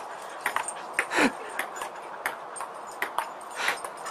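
Ping-pong ball clicking in irregular hits on the table, with a short cry that falls in pitch about a second in.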